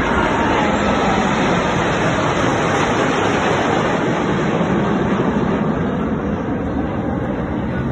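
Jet aircraft roar during an aerobatic display: a loud, steady rushing noise that eases a little near the end.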